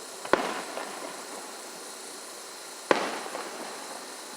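Two aerial firework shells bursting, one about a third of a second in and another near three seconds in. Each sharp bang trails off into a crackling echo.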